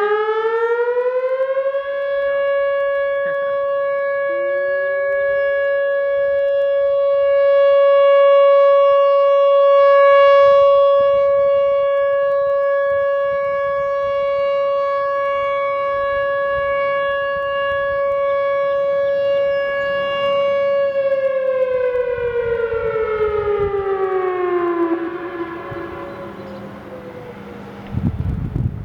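Whelen 3000 outdoor warning siren sounding a test: its tone finishes rising in pitch over the first two seconds, holds one steady note for about nineteen seconds, then falls away in pitch over about four seconds and fades.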